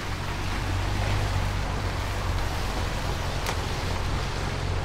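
Mini Cooper S Countryman ALL4 driving slowly on a leaf-covered dirt track: a steady low engine hum under a hiss of tyre and outdoor noise, with one sharp click about three and a half seconds in.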